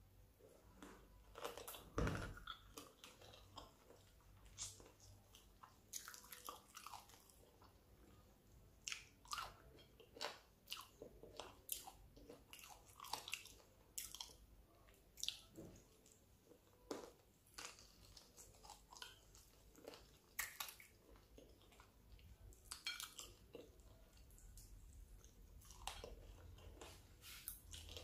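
A person chewing and biting chicken feet: a run of irregular small clicks and smacks, the loudest about two seconds in.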